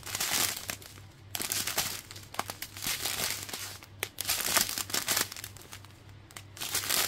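Clear plastic bags of diamond-painting drills crinkling as they are handled, in irregular rustling bursts with short pauses between them.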